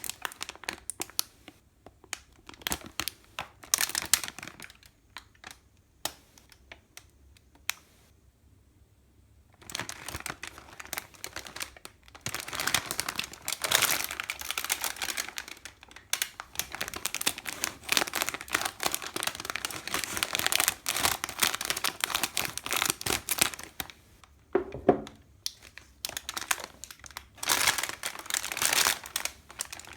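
Plastic snack packaging crinkling and rustling as it is handled, with a lull of a few seconds about a third of the way in.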